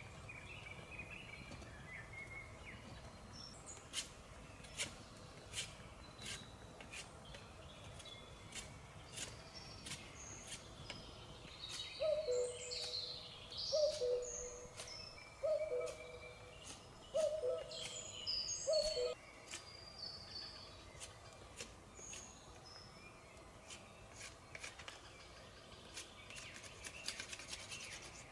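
Small open campfire crackling with sharp pops, under songbirds chirping. About halfway through, a common cuckoo calls its falling two-note "cuck-oo" five times in a row, the loudest sound.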